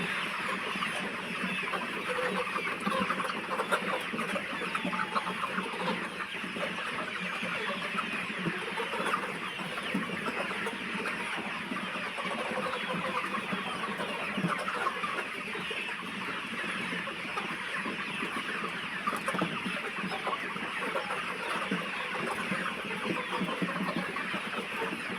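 A large flock of chickens in a deep litter poultry house, many birds clucking and chirping over one another in a steady, unbroken din.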